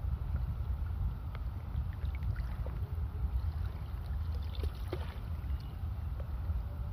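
Wind rumbling on the microphone over open sea water, with faint small splashes and lapping of shallow water.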